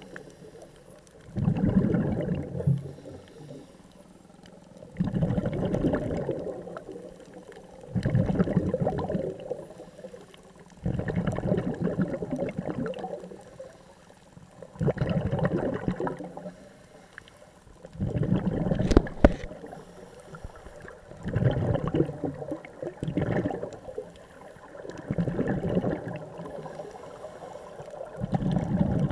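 Scuba regulator exhalations heard underwater: a burst of bubbles gurgling about every three seconds, each lasting a second or two, with quieter gaps between. A sharp click sounds about two-thirds of the way through.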